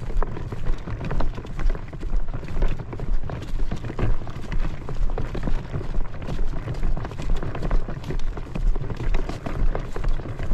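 Footsteps of a person walking at a steady pace on a sandy, grassy trail, about two steps a second, each step a dull thump.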